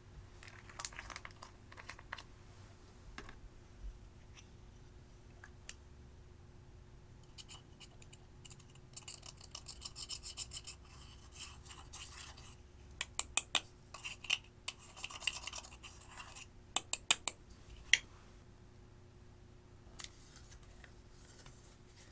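Pressed eyeshadow being scraped and crushed out of its pan: short bursts of scratching and rasping with sharp clicks in between, busiest in the middle stretch.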